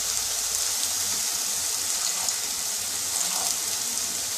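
Beetroot paste sizzling with a steady hiss in a hot non-stick frying pan, a splash of water just added, steaming on the hot pan.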